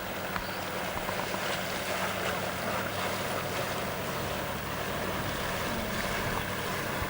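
Electric outboard motor running steadily under way on a 60 V battery, giving a low, even hum with several steady tones. Water rushes along the hull and wind noise is on the microphone.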